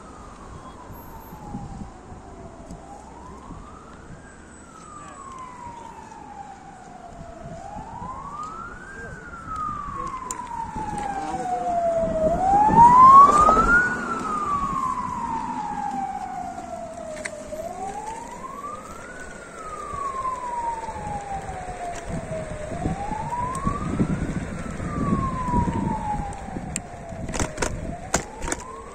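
Ambulance siren wailing, each cycle rising quickly and falling slowly, repeating about every five seconds. It is loudest about halfway through as the ambulance passes close by.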